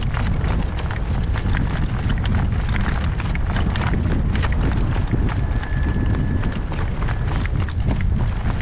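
Strong gale-force wind buffeting the microphone in a constant low rumble, with many sharp clicks and knocks through it and a faint thin steady tone for about a second past the middle.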